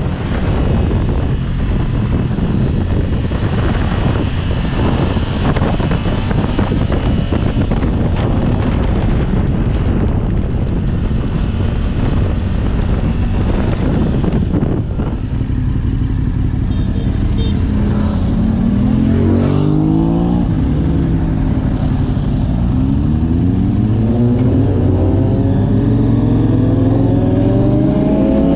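A motorcycle ridden at speed, with a heavy rush of wind and road noise. In the second half the engine note climbs several times in a row as the bike accelerates up through the gears.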